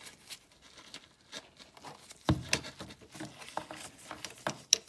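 Scattered metal clicks and light knocks, with glove rustle, as a long Allen wrench on a multi-tool is fitted up into a snowmobile chaincase drain plug and turned by hand. Two sharper knocks stand out, about two seconds in and near the end.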